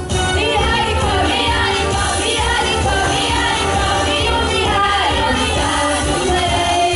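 Singers performing a pop-style song over instrumental accompaniment, with sustained, wavering vocal lines over a steady bass.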